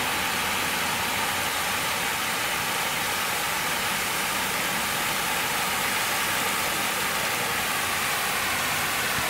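Steady, even rushing hiss with a faint steady whine running through it, unchanged throughout.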